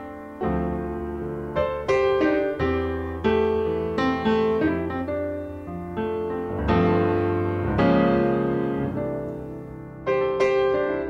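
Background piano music: slow chords and notes struck and left to ring out.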